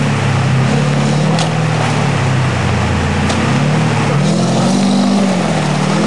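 Range Rover Classic's engine revving up and down under load as it drives an off-road stage, its pitch rising and falling every second or two.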